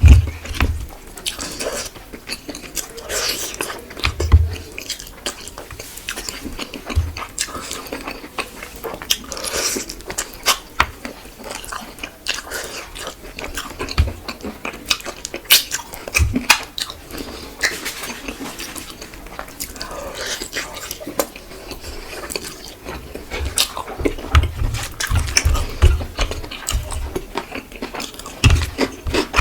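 Close-up chewing and biting of a person eating fish with rice and curry: wet mouth sounds with many irregular short clicks and occasional low thumps.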